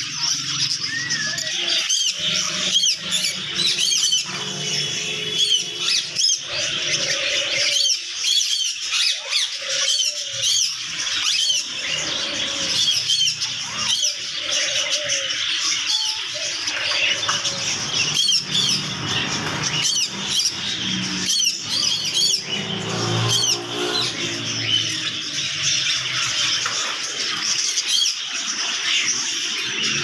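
Many caged parakeets chirping and squawking together, a dense, unbroken chatter of short high calls.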